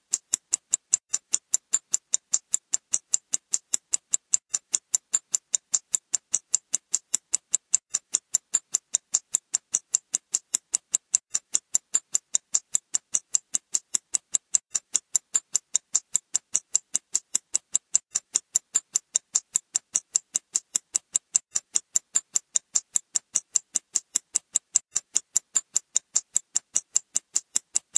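Clock ticking as its second hand advances: an even run of short, sharp ticks, about four a second, never changing pace.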